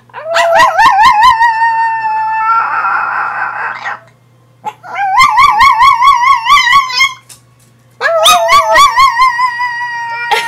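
Chihuahua howling: three long, high-pitched howls with a quick warble in pitch, each sliding up at its start, separated by short pauses. The first turns rough and breathy in its second half.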